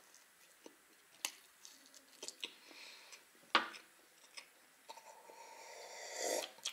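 Close-up chewing of pie with small wet mouth clicks, then a single sharp knock about three and a half seconds in. After it comes the sound of drinking from a glass jar, swelling for a second or two near the end.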